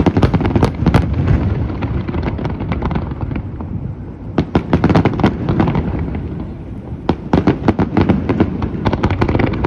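Aerial fireworks bursting in rapid volleys: clusters of sharp bangs and crackles over a continuous low rumble, with a first flurry at the start, another about halfway through and a third near the end.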